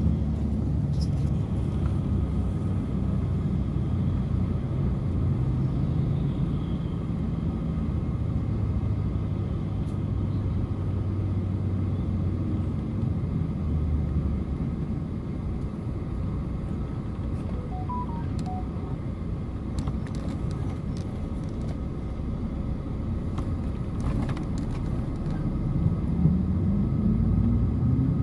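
Engine and road rumble of a moving vehicle, heard from on board: a steady low drone whose pitch wavers, then rises near the end as the vehicle speeds up.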